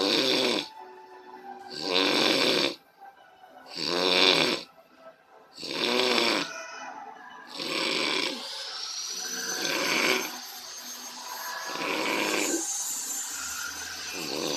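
A person snoring loudly, one snore about every two seconds, each an evenly spaced rasping breath. A steady high whine joins the background about halfway through.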